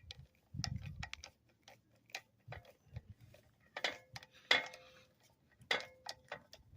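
Hand tool fastening a new wooden handle into a shovel's metal socket: irregular light clicks and taps, with a few louder metallic knocks that ring briefly.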